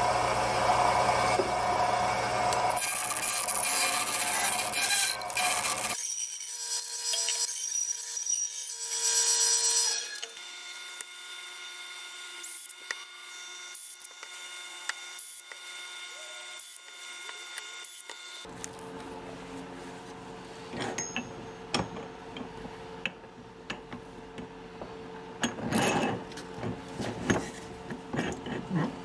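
Band saw running and cutting a slab of cottonwood bark for about the first ten seconds. Then quieter handling: the bark rubbing and knocking as it is fitted onto a carving vise, with a steady hum behind it.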